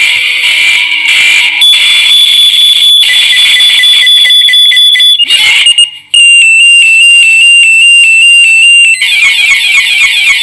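Loud electronic emergency-alert alarm tones in sequence: a steady high tone, cut off briefly about six seconds in, then a different alarm tone stepping slightly in pitch, which gives way to a rapid pulsing alarm about nine seconds in.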